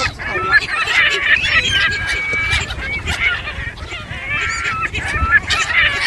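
A feeding flock of black-headed gulls and greylag geese calling over each other, a dense stream of harsh cries and honks with some longer held notes, over a low wind rumble.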